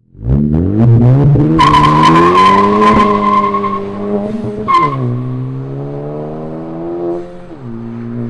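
Car accelerating hard with its tires squealing as the engine note climbs. About halfway through the squeal stops and the pitch drops suddenly, as at a gear change, before the car runs on steadier and drops pitch again near the end.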